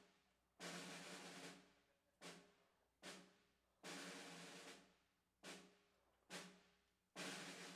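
Snare drum faintly beating a slow marching cadence: a single stroke a little more often than once a second, with a short roll about every three seconds.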